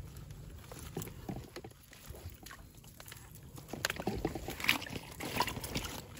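Shallow water sloshing and splashing, with rustling and light knocks from a mesh fish trap being handled at its round mouth. The sounds are irregular and busiest a little past the middle.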